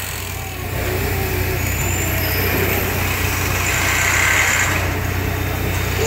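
1917 600-horsepower Snow gas compressing engine running steadily, a deep low-pitched engine sound.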